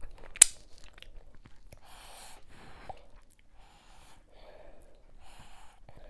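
Close-miked eating sounds of fufu and ogbono soup eaten by hand: a sharp wet smack about half a second in as fingers are sucked clean, then chewing and soft noisy mouth sounds.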